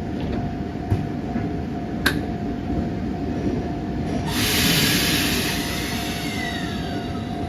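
Iyo Railway Moha 5000 electric tram car pulling away from the platform, its running noise steady with a constant tone. A sharp click about two seconds in, then a loud hiss of air for about two seconds, with a falling electric tone near the end.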